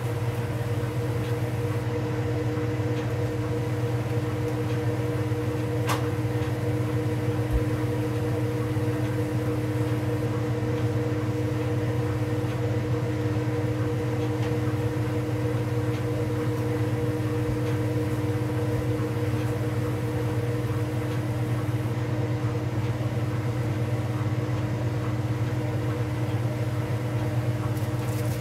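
Whirlpool Supreme belt-drive top-load washer spinning at speed: a steady hum from the motor and belt drive with a few steady tones above it. A single click about six seconds in.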